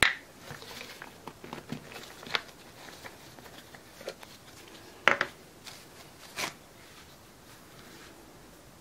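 Handling noise of plastic resin bottles and a plastic measuring cup on a bench covered in plastic sheeting: scattered light clicks and knocks, the loudest about five seconds in and another about a second and a half later.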